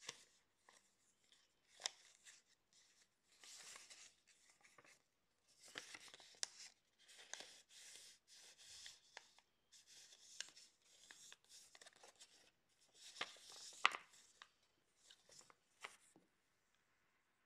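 Sheets of paper being folded, creased and slid by hand on a tabletop: faint rustling and crinkling in short bursts, with scattered sharp clicks and one louder tap late on.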